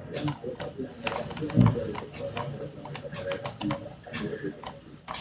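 Rapid, irregular clicking at a computer, typing-like taps a few per second, with a dull low thump about one and a half seconds in.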